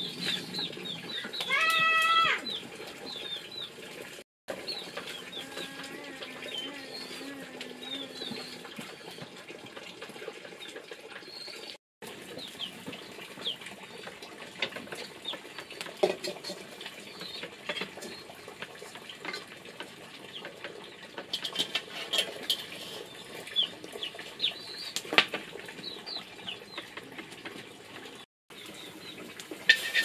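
Chickens: many short, high chirps throughout, with a louder drawn-out call about two seconds in and a low steady call a few seconds later. The sound breaks off briefly three times.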